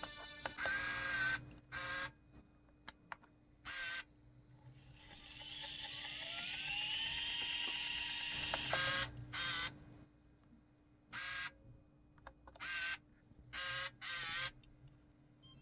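Aiwa HD-S200 portable DAT recorder's tape transport being run through rewind, fast-forward and stop: a few faint button clicks and short, loud bursts of noise. In the middle comes a longer whir lasting about three and a half seconds, rising in pitch as the tape winds at speed.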